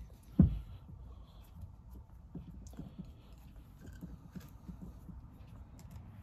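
Small clicks and scrapes of a screwdriver and hands working screws out of a Solex 34 PICT carburetor body, with one sharp knock about half a second in.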